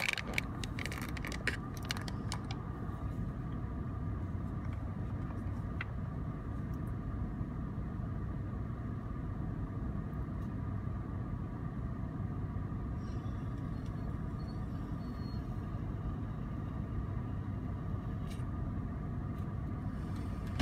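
Car idling while stopped in traffic, heard from inside the cabin: a steady low engine and road rumble with a steady faint whine above it. A few light clicks sound in the first couple of seconds.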